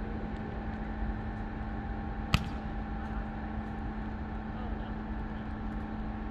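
Steady background hum, with a single sharp smack about two seconds in: a volleyball struck by hand.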